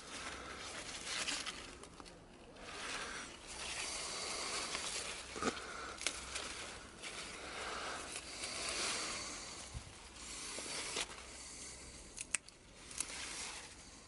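Bean plant leaves rustling and crackling as bean pods are picked by hand, with a few sharp snaps as pods are pulled off the vine.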